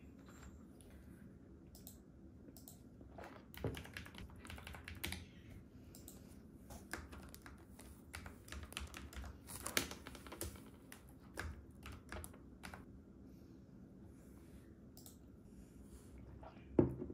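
Typing on a backlit mechanical computer keyboard: irregular runs of key clacks with pauses between them. Near the end a ceramic mug is set down on the desk with a short thunk, the loudest sound in the stretch.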